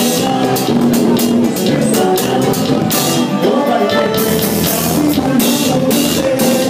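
Live band playing Haitian kompa: a drum kit keeps a steady beat under electric guitar and a singing voice.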